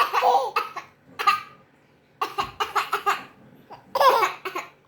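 Coughs and a small child's laughter, coming in several short bursts with a quick run of giggles in the middle: the child is laughing at the coughing.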